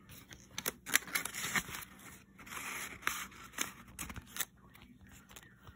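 Paper being handled: a budget sheet slid out of a paper envelope among banknotes, a run of crisp rustles, scrapes and sharp clicks.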